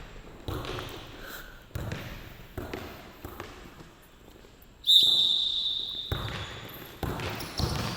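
A basketball being dribbled on the court, with several bounces at uneven gaps of about a second. About five seconds in, a sharp steady whistle blast lasting a little over a second is the loudest sound.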